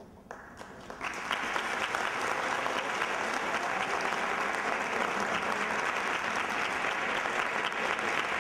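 Audience applauding, the clapping starting about a second in and then keeping up steadily.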